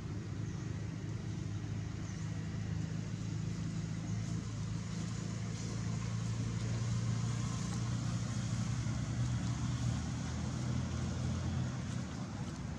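Low steady hum of a motor vehicle engine running, growing louder past the middle and easing off near the end.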